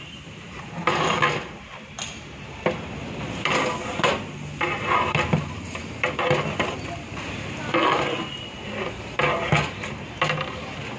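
Flat metal ladle stirring a thick masala of tomatoes and herbs in a large metal biryani pot, scraping and knocking against the pot in repeated, irregular strokes.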